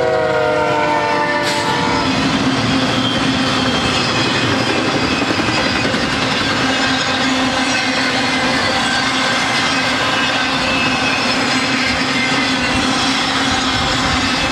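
BNSF diesel locomotive's air horn sounding as it passes, its chord sliding down in pitch and ending about two seconds in. Then the steady rumble and clatter of a long string of double-stack container and trailer-on-flatcar intermodal cars rolling by.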